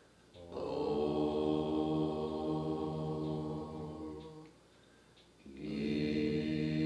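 Soundtrack music of low, droning chant on long held notes. One phrase swells in about half a second in and fades out after about four seconds, and after a short pause the next phrase begins near the end.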